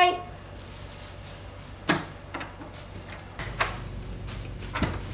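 A wooden door's handle and latch clicking a few times, with the loudest click near the end.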